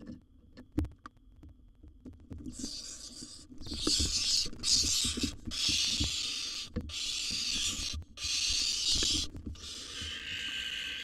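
Barn owls hissing in a fight with an intruding owl: about seven long harsh hisses in a row, starting a couple of seconds in, each about a second long with short breaks between. Dull thumps and knocks of the birds scuffling in the nest box come through underneath.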